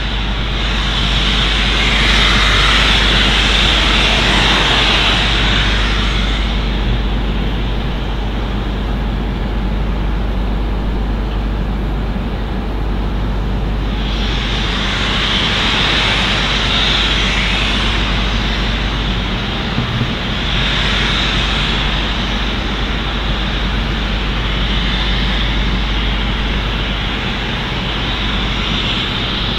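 Royal Scot class steam locomotive 46100 letting off steam: loud hissing that swells and eases in long surges lasting several seconds, over a steady low rumble, with no exhaust beat.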